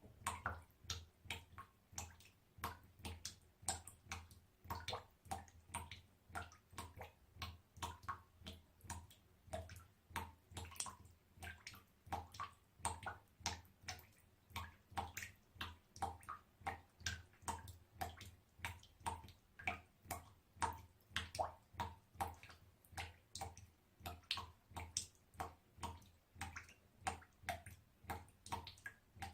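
Small water drops dripping steadily, about two to three drops a second, each a short plink.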